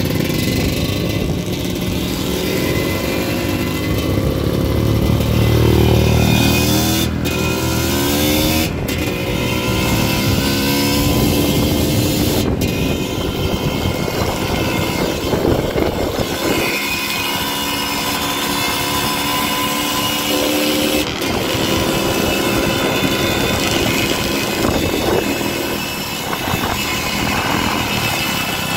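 Dirt bike engine running on the move, its pitch rising and falling again and again as the rider revs and changes gear.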